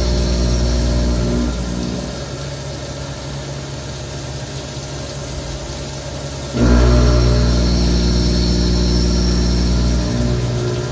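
Haas Minimill HE CNC machining center milling under flood coolant: the machine's steady pitched running sound eases off about a second and a half in, leaving the hiss of coolant spray, then comes back suddenly past the middle and drops again near the end.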